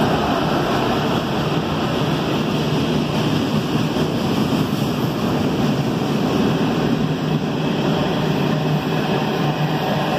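Freight train's boxcars and tank cars rolling steadily past below, steel wheels running on the rails.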